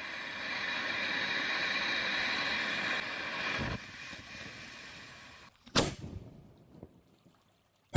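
Consumer firework fountain spraying with a steady hiss that stops about three seconds in, followed by a low thump, then one sharp bang about six seconds in.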